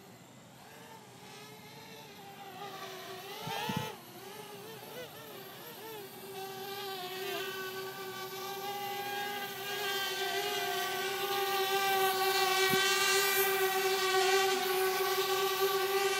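Parrot Bebop quadcopter's motors and propellers humming. The pitch wavers during the first few seconds, then holds steady as the hum grows louder.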